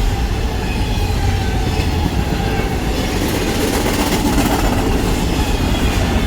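Double-stack freight train's wagons rolling past, a loud steady rumble of steel wheels on the rails with a faint high squeal from the wheels.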